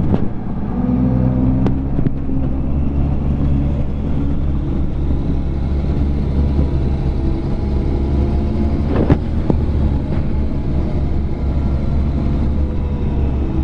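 Trail-grooming vehicle's engine running steadily under way, with a single sharp knock about nine seconds in.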